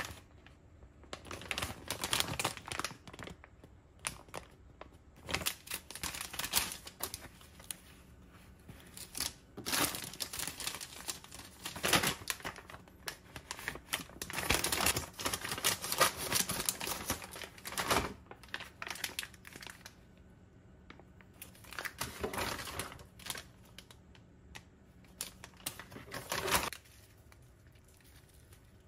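Plastic packaging of a ready-made rolled fried-tofu rice (yubu chobap) pack crinkling in the hands in irregular bursts as it is handled and torn open; the rustling stops shortly before the end.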